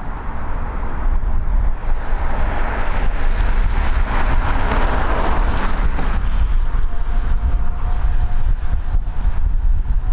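Airbus A320 jet engines at taxi power as the airliner rolls past, a rushing hiss that swells to its loudest about halfway through and then eases as it moves away. Wind buffets the microphone with a low rumble.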